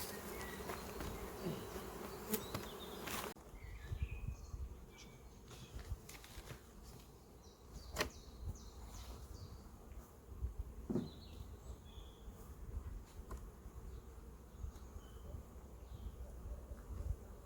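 Honeybees buzzing in a steady hum at an open hive, loud for the first few seconds and then cutting off abruptly to a quieter background. A few sharp knocks and short bird chirps follow.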